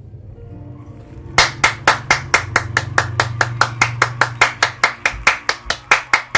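One person clapping close to the microphone, a steady run of sharp single claps about five a second that starts about a second and a half in.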